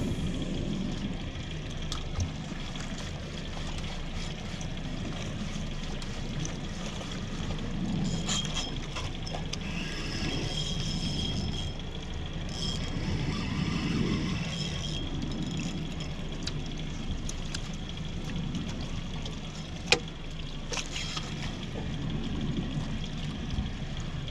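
Water slapping and trickling against a small boat's hull, with a thin whirring from a spinning reel being cranked during the retrieve in the middle of the stretch. A single sharp knock comes about 20 seconds in.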